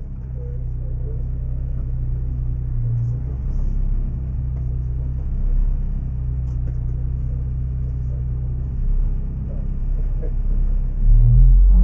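Honda Civic Type R's K20 four-cylinder engine idling steadily, heard from inside the cabin, with a few brief throttle blips; near the end the revs rise and it gets clearly louder.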